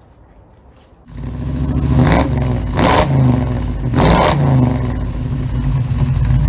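Rebuilt Hemi V8 in a Ram pickup running loudly. It comes in suddenly about a second in, then revs three times, its pitch rising and falling with each throttle blip.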